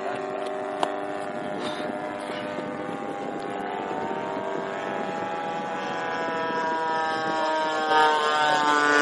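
Chip Hyde Vision 3D radio-controlled aerobatic plane in flight, its motor note sliding up and down in pitch and growing louder near the end.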